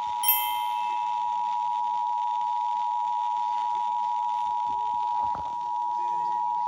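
Emergency Alert System attention signal: the steady two-tone 853 and 960 Hz alert tone received over broadcast radio, sounding without a break. A short click comes near the start, and the tone dips slightly in level a little after five seconds in.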